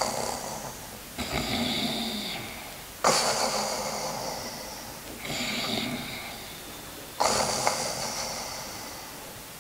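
A man snoring in his sleep, about five snoring breaths at roughly two-second intervals, each starting suddenly and trailing off.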